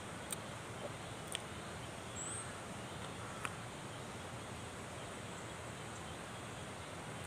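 Steady outdoor background hiss with a few sharp clicks and one short, high chirp about two seconds in.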